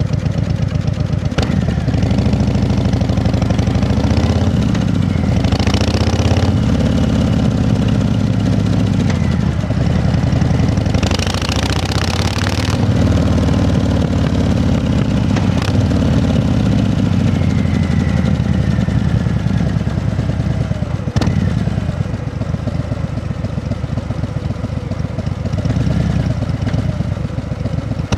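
An engine running steadily, with a few sharp clicks and a short burst of hiss about eleven seconds in.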